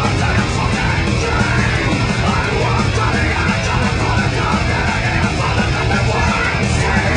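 Loud heavy rock music with shouted vocals over a driving low end.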